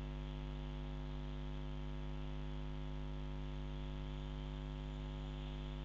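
Steady electrical mains hum at an unchanging level, with no switch click standing out above it.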